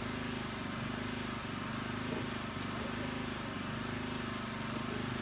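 Evening outdoor ambience: a steady low drone with a faint, fast-repeating high chirp of insects over it, and one light click about halfway through.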